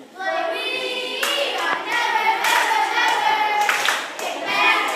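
A group of girls singing a camp action song together, with a few hand claps among the singing.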